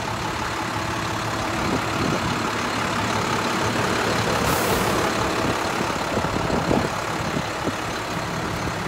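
Diesel engine of an International 4300 bucket truck idling steadily with the PTO engaged. A short hiss sounds about four and a half seconds in.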